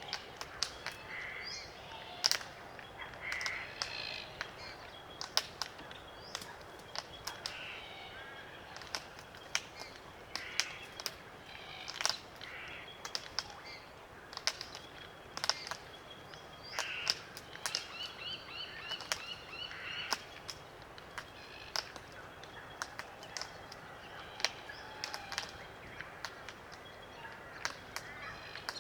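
Glossy black cockatoos feeding on Allocasuarina cones: sharp clicks from their feeding come frequently and unevenly, with soft creaking calls between them.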